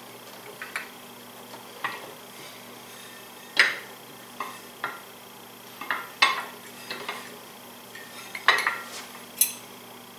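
Irregular metal clinks and clacks of vice grips and a punch against a Polaris RZR XP 1000 secondary clutch as a new roller is pushed down into its slot and lined up. About ten sharp knocks are spread unevenly, the loudest about a third of the way in and again near the end.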